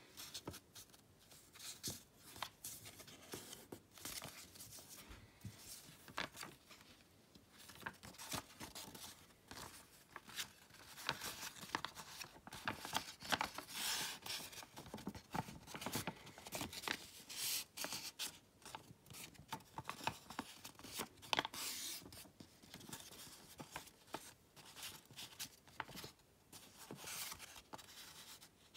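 Sheet of origami paper being folded and creased by hand: irregular crinkling and rustling, with short sharper swishes as the paper is pressed and rubbed along its folds, busiest through the middle stretch.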